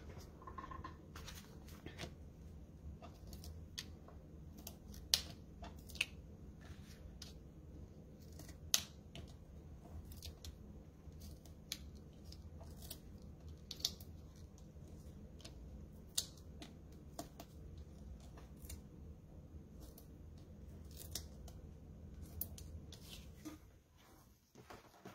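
Foam adhesive dimensionals being peeled one at a time off their paper backing sheet and pressed onto small paper pieces: scattered sharp paper ticks and crackles. A low steady hum underneath stops near the end.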